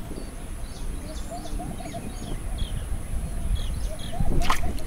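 Pondside outdoor ambience: many small birds chirping, a steady high-pitched insect buzz, and wind rumbling on the microphone. A short sharp swish sounds near the end.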